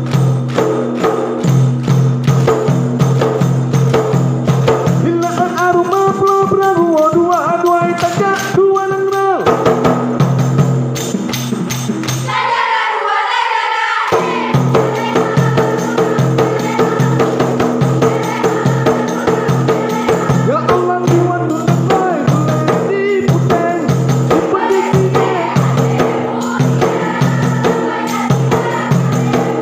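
Ratoh Jaroe dance accompaniment: a rapa'i frame drum beaten in a steady rhythm under the dancers' fast hand claps and body slaps, with singing voices chanting over it. About twelve seconds in, the drum and claps stop for about a second and a half, leaving only the voices, then start again.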